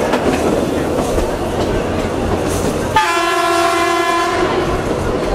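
Metre-gauge train running with a steady rumble, heard from inside a carriage. About three seconds in, the Dongfanghong 21 (DFH21) diesel locomotive's horn sounds one steady blast lasting under two seconds.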